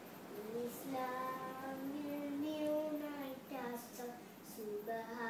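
A child singing, holding long notes that slide up and down in pitch.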